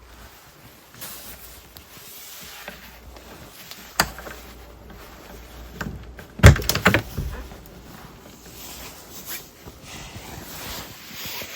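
Thumps and knocks over a steady rush of wind: a sharp click about four seconds in, then a loud burst of knocks about six and a half seconds in.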